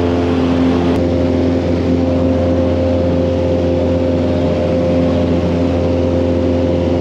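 Single-engine Cessna light aircraft's piston engine and propeller running steadily, heard inside the cabin as a loud, even hum with a low tone and a few higher steady tones that do not change.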